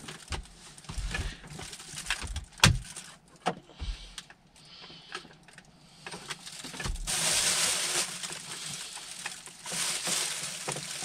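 A metal wallpaper scraper clicking and scraping against plastic dashboard trim as it is worked in along the panel's edges to pry it loose, with one sharp click about two and a half seconds in. From about seven seconds in, a plastic bin liner rustles steadily.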